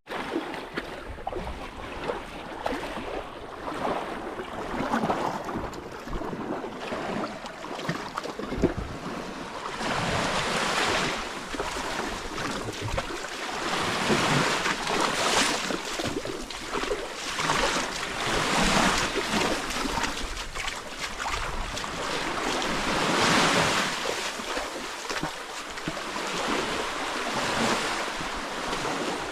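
Sea waves washing in and out, swelling and fading every few seconds, with wind buffeting the microphone.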